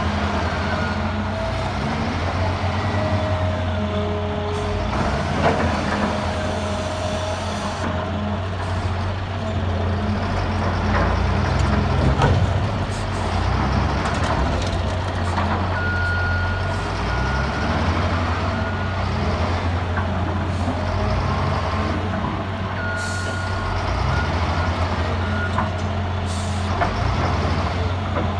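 Heavy earthmoving machine's diesel engine running steadily, with short high whines coming and going over the low engine drone.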